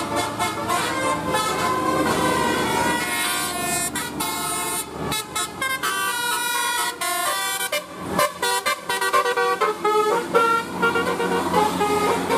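Indonesian 'telolet' bus horn, a multi-tone air horn playing a quick tune of short notes that jump up and down in pitch, over a steady low hum.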